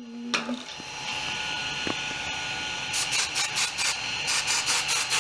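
Aerosol can of hairspray sprayed onto a 3D printer's build plate in a series of short, rapid hissing bursts starting about three seconds in, over the steady whir of the printer's fans.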